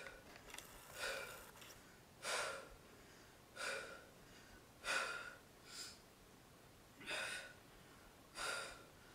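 A woman breathing hard from the effort of a heel-tap ab exercise: faint, sharp exhalations about every second and a half, around seven in all.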